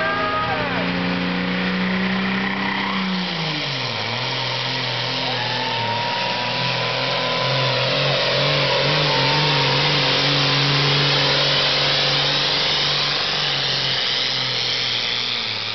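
Modified pulling tractor's engine running flat out under load while dragging a weight-transfer sled. About three seconds in the engine note drops sharply as it is pulled down by the sled's rising load, then holds steady at the lower speed.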